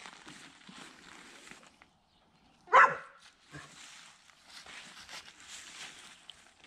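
A dog barks once, short and loud, about three seconds in, over a faint rustling background.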